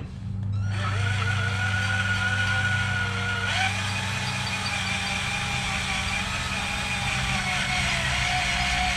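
Electric drill running steadily as it bores into a broken stainless-steel motor-mount bolt, its motor whine starting about a second in and shifting in pitch partway through.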